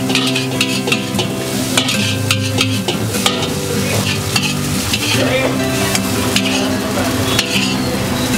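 Noodles sizzling in a hot wok while a long metal spatula scrapes and knocks against the pan as they are stirred and tossed.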